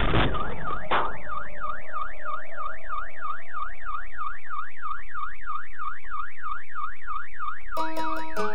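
A loud crash of a car collision, a second knock about a second in, then a car alarm wailing rapidly up and down, about three sweeps a second.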